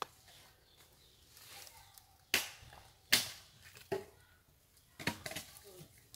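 A few short, sharp crunching crackles, like dry vegetation being crushed: two loud ones about a second apart, then a quicker cluster near the end.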